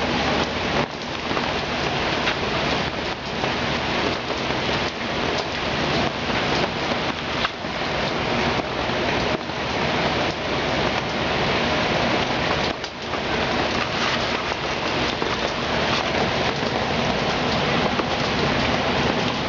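Heavy hurricane rain pouring down steadily, an even, unbroken hiss of rain on surfaces.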